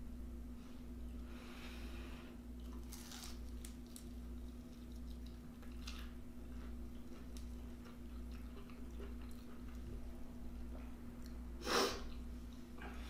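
Close-up chewing and mouth sounds of someone eating, over a steady low hum. A short, louder noise stands out near the end.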